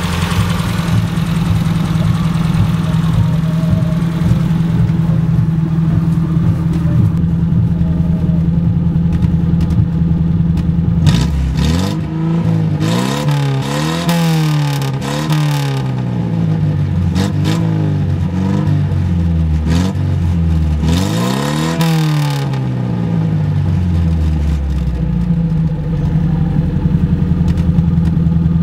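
Toyota Corolla AE80 1.3 four-cylinder engine idling steadily, then revved up and down several times for about twelve seconds from around the middle, then settling back to idle. It is the car's original, worn-out engine, which burns oil.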